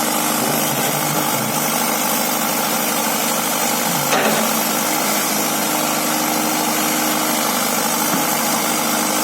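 Excavator's diesel engine running steadily, with a single brief knock about four seconds in.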